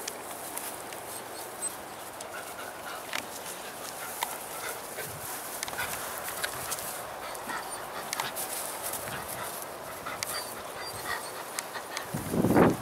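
Shetland Sheepdogs playing: faint scattered rustling and small clicks, then one loud bark near the end.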